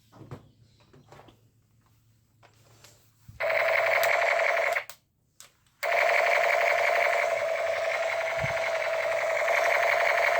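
Battery-operated toy gun giving off a steady electronic buzzing tone, after a few faint handling clicks. The buzz starts about three seconds in, breaks off for about a second, then carries on steadily.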